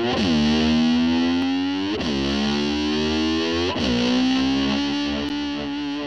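Distorted electric slide guitar holding a note that swoops down and slides back up three times, imitating a motorcycle revving, before the band comes in.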